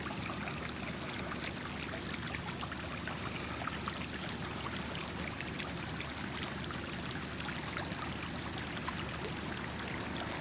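Water streaming steadily from a leak under a city street, an even rush of running water with small splashes and trickles through it.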